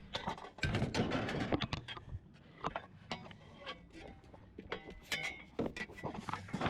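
Irregular knocks, clanks and rattles of curbside scrap being handled and moved, light aluminum bed-frame rails among it.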